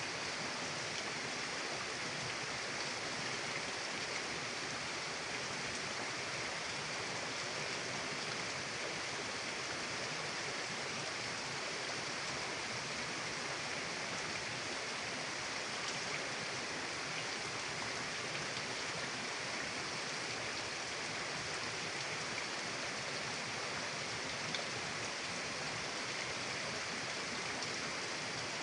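Mountain river flowing, a steady even rush of water with no breaks.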